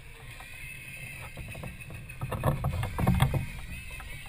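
Wind rumble and knocking on the microphone of a camera raised high on a pole, growing louder about two seconds in.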